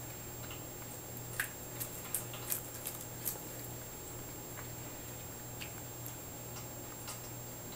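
A cat licking and chewing bonito flakes off a ceramic plate: a quick run of small clicks and taps in the first few seconds, then a few scattered fainter ones, over a steady low hum.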